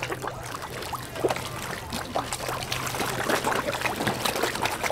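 A crowd of carp splashing at the water's surface in a feeding frenzy over thrown food, a dense, rapid patter of small splashes, over a steady low hum.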